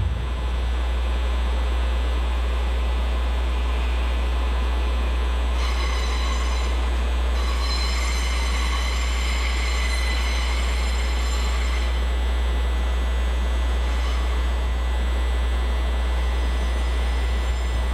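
Train pulling into a station: a steady deep rumble, with a high metallic squeal of several tones from the wheels and brakes starting about five seconds in and dying away a few seconds later.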